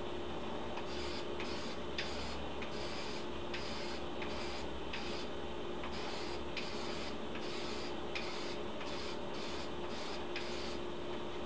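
Aerosol can of Dupli-Color clear wheel coating spraying in many short bursts, a quick hiss about twice a second starting about a second in, with light clicks among them over a steady background hum.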